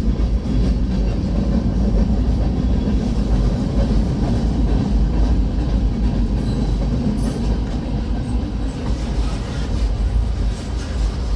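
Freight train cars rolling past, a steady loud rumble of wheels on rail.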